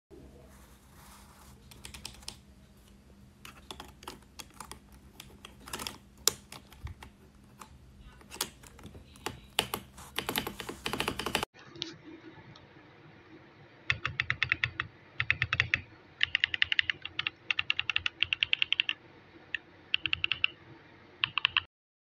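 Typing on a mechanical keyboard with Akko Cream Blue V3 tactile switches. Scattered keystrokes grow denser toward the middle. After a sudden break come quick bursts of fast typing with short pauses, stopping abruptly near the end.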